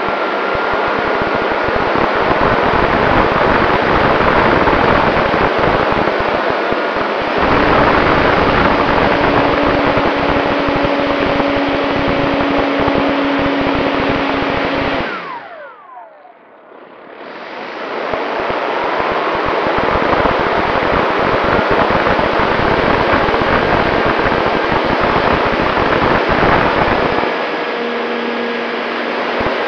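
Wind rush and the electric motor and propeller of an E-flite P-51 Mustang RC plane, heard from a camera on the plane. About halfway through the motor whine falls in pitch and the sound drops away for a second or two, throttled back, then builds back up.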